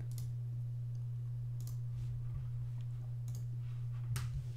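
About four sparse computer mouse clicks, spaced roughly a second and a half apart, with the last one the loudest. Under them runs a steady low electrical hum.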